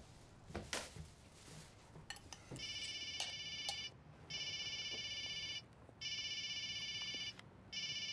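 A few sharp clicks in the first second, then a telephone's electronic ringer sounding a high warbling trill about two and a half seconds in, ringing four times with short gaps between rings.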